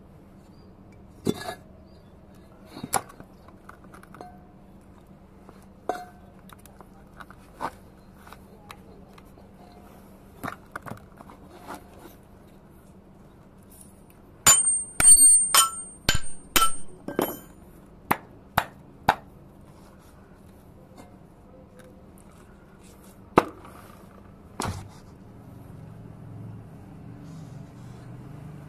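Metal tools and parts of a Hino bus brake servo knocking and clinking as it is worked apart: scattered sharp knocks, then about halfway through a quick run of about ten ringing metal-on-metal strikes.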